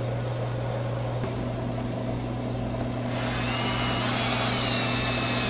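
Power drill with a hex nut-driver bit starts about three seconds in and whirs with a high motor whine, driving a hex-head screw into the door gasket's metal retainer, over a steady low hum.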